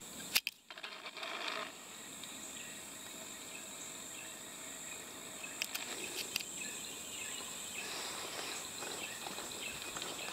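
Insects in the woods, a steady high-pitched drone, with a few faint clicks and crackles.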